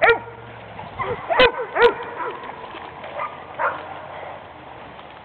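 English Labrador Retriever puppies giving short yips and barks, three loud ones in the first two seconds, then a few fainter ones.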